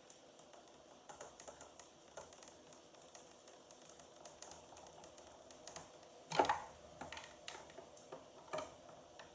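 Hand work on the plastic body of a kids' ride-on Power Wheels Jeep: scattered light clicks and taps from tools and parts, with a louder knock about six seconds in and another near the end.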